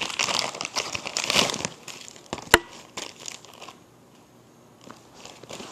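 Packaging crinkling and rustling as a package is handled and opened, busiest in the first two seconds, with one sharp click about two and a half seconds in.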